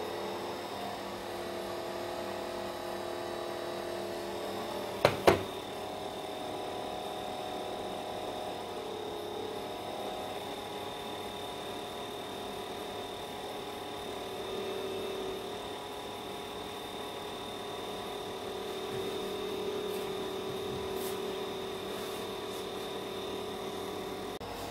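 Small motor of a restored rechargeable electric fan running with a steady hum, its pitch shifting slightly now and then. Two sharp clicks about five seconds in.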